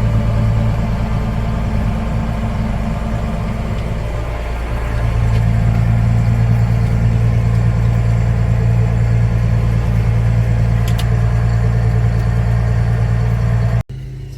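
Case IH Magnum tractor's diesel engine running steadily as it gets under way with the chisel plow. It eases off a little around three to four seconds in and picks back up about five seconds in, then cuts off abruptly just before the end.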